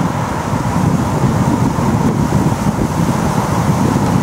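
Strong wind buffeting the microphone, loud and steady.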